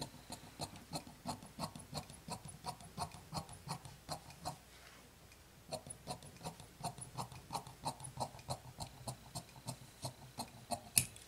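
Fabric shears cutting along a strip of rayon cloth: a steady run of short snips, about four a second, breaking off for about a second near the middle and then carrying on.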